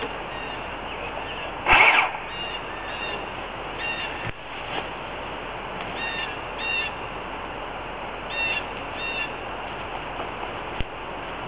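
A bird calling in short paired chirps, repeated several times over a steady outdoor hiss, with one brief loud noise about two seconds in.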